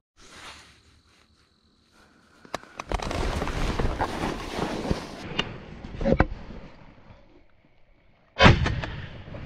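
Rustling and handling noise as a shotgun is raised inside a layout blind, with a few sharp clicks. Near the end comes a single loud shotgun shot, fired at a passing pigeon, with a short ring-off.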